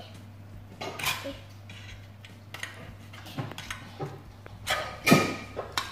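Cutlery clinking against stainless steel divided food trays: a string of separate clinks and scrapes, the loudest about five seconds in.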